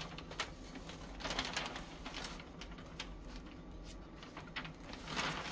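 Handling noises of wrapping paper and a cardboard box: scattered light taps and clicks with a few short paper rustles.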